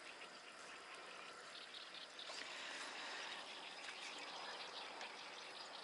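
Faint outdoor ambience over calm water: a low steady hiss with many small scattered ticks and chirps.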